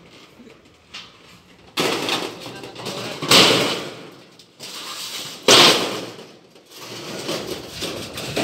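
Corrugated metal roofing sheet scraping and rattling against the metal roof frame as it is pushed into place, three loud spells of clattering about two, three and a half and five and a half seconds in.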